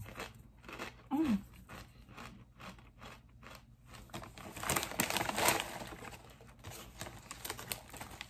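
Kettle-cooked potato chip being crunched and chewed, a string of short sharp cracks, with a louder, denser stretch of crunching about five seconds in.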